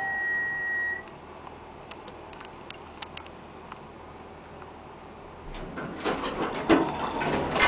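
Pine State hydraulic elevator arriving at a floor: an electronic chime note sounds for about a second, then the car hums quietly with a few faint clicks. From about five and a half seconds in, the stainless-steel car doors slide open with a rumble and clatter.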